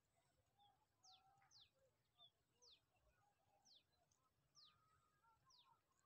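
Faint birdsong: a quick, high whistled note sliding sharply downward, repeated six times at roughly one-second intervals, with softer, lower chirps from other birds in between.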